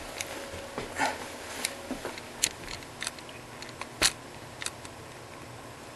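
A series of short, sharp clicks and knocks, a dozen or so spread unevenly, with the loudest about four seconds in.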